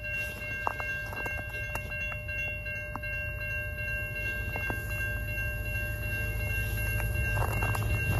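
Railway crossing bell ringing steadily while the crossing lights flash. Under it, the low rumble of an approaching freight train led by a CN EMD SD70M-2 locomotive grows slowly louder.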